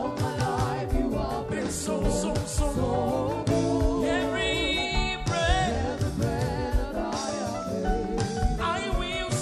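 Live gospel worship music: a singer's voice over a band with keyboard and drums, the singing bending and ornamented, with no clear words.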